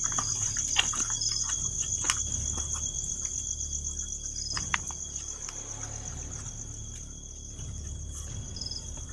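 Night insects, crickets, trilling in a steady high-pitched pulsing chorus, with a few short higher chirps over it. Three sharp clicks break in during the first five seconds.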